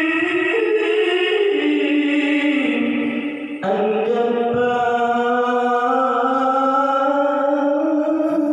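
A solo voice singing unaccompanied in long held, chant-like notes that step up and down in pitch. It breaks off briefly for a breath about three and a half seconds in, then goes on.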